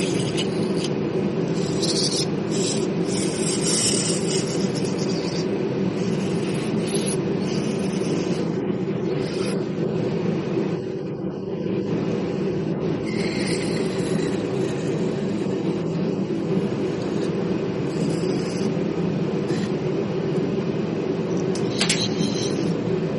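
Troy-Bilt snowblower's small gasoline engine running steadily at a constant speed, with bursts of high hiss now and then.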